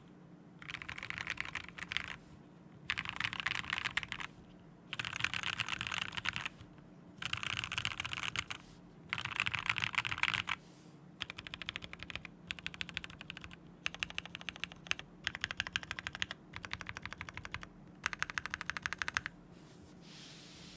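Typing on a Glorious GMMK Pro mechanical keyboard: about ten short bursts of rapid keystrokes with brief pauses between them. The bursts are dense in the first half and sparser in the second. It is a board that users widely report to sound a bit hollow.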